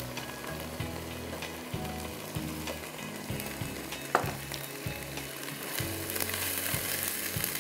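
Cubed potatoes sizzling in hot oil with fried onions in a non-stick wok, stirred with a perforated metal spoon that scrapes and taps the pan. There is a single sharp click about four seconds in.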